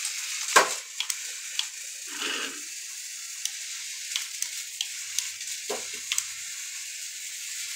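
Mini RC motorcycle running across a tiled floor, its balancing gyro spinning with a steady high hiss, scattered light ticks over it. There is a sharp click about half a second in and a knock about six seconds in.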